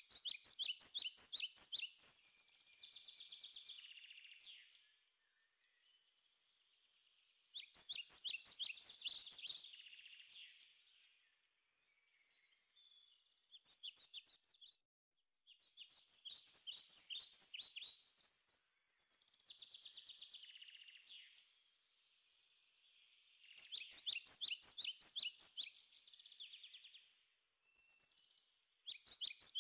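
A bird singing: bursts of rapid, sharp chirping notes every few seconds, with softer warbling between them.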